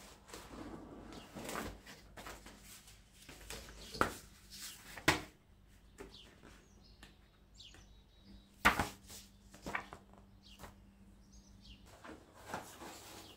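Household handling sounds: a few sharp knocks and clinks, the loudest about five seconds in and again near nine seconds, over a low steady hum, with a few faint short high chirps between them.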